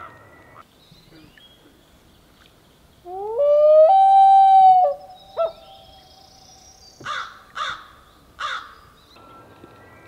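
Common loon wailing: one long call that rises in pitch and then holds steady for about two seconds, followed by a short note and, a little later, three short, rougher calls.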